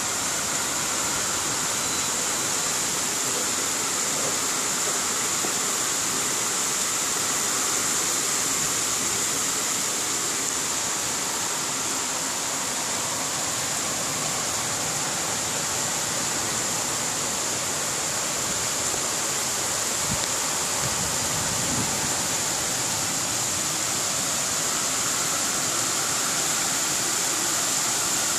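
Heavy rain pouring down, a steady unbroken hiss of a downpour.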